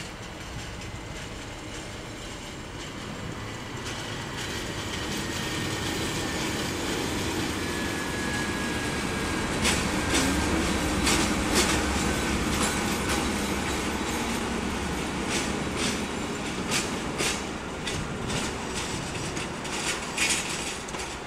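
A PKP Cargo diesel locomotive passes at low speed. Its running grows louder to a peak about ten seconds in, then fades as it pulls away. From about ten seconds in, its wheels give a run of sharp clicks over the rail joints, and a faint high whine drifts slowly lower.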